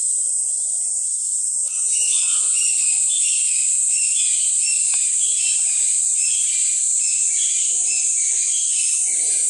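Cicadas giving a steady, high shrill buzz. About two seconds in, a second, pulsing cicada song joins and repeats a few times a second.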